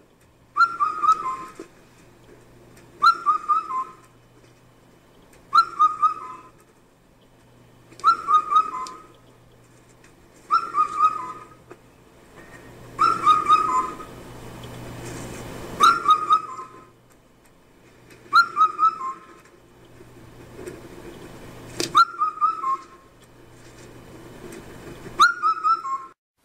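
A bird sings the same short whistled phrase over and over: a few quick falling notes, repeated evenly about every two and a half seconds, with a faint low hum underneath. The sound cuts off suddenly near the end.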